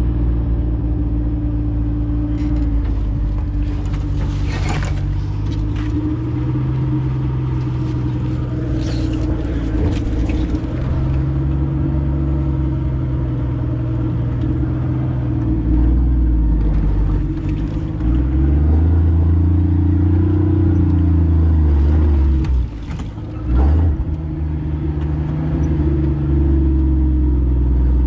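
Jeep CJ5 engine running at crawling speed, heard from the cab, its pitch rising and falling with the throttle, louder in the second half. A few knocks and clatters come through along the way, about five and ten seconds in and again near the end.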